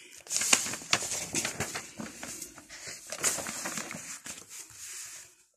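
Paper rustling with irregular clicks and taps from hands shifting the sheets and handling the phone filming them. The sound cuts off abruptly near the end.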